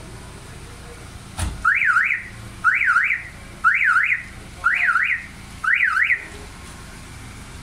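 A vehicle's electronic siren sounding five short warbling bursts about once a second, each a quick rise and fall in pitch. A single knock comes just before the first burst.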